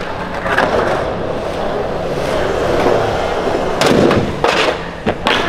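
Skateboard wheels rolling on concrete, then three sharp clacks of the board in quick succession near the end.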